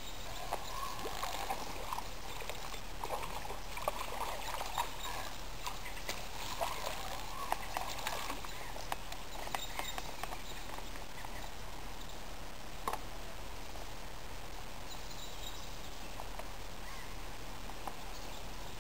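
A hooked perch splashing at the water's surface while a fishing reel is wound in: irregular splashes and small clicks for about the first ten seconds, then only a steady outdoor hiss with a single click.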